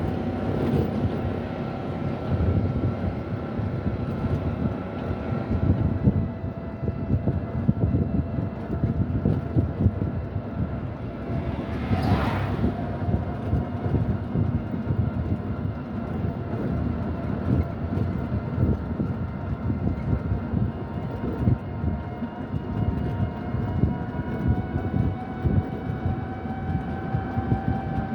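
Steady rumble of a moving vehicle, with a faint whine holding a steady pitch that rises slightly near the end. A short hiss comes about twelve seconds in.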